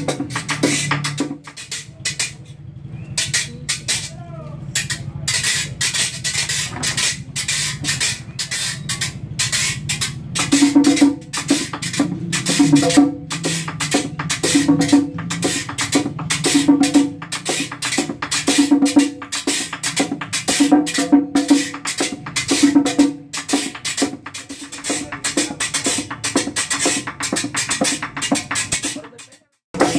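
Metal güiras scraped in a fast, even bachata rhythm. About ten seconds in, a hand drum joins with a pitched stroke roughly once a second.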